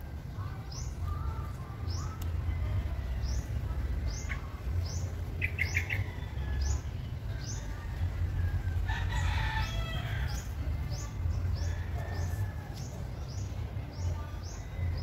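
Birdsong: a high, falling chirp repeated about every three-quarters of a second throughout, with a rooster crowing once about nine seconds in. A low rumble runs underneath.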